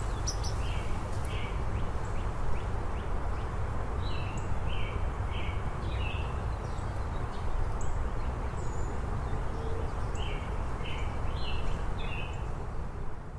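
Small birds chirping outdoors: short high notes in scattered clusters over a steady low background rumble.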